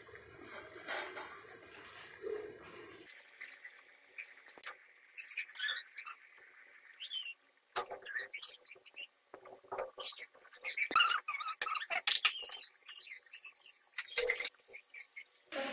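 Hot oil sizzling and crackling around tati garelu (palm-fruit fritters) deep-frying in a kadai, with many sharp pops and spits. The popping gets busier after the first few seconds.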